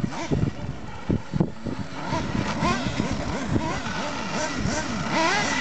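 Radio-controlled model cars racing, their small motors revving up and down over and over as the throttle is opened and closed; several cars are heard at once, with a rising whine near the end.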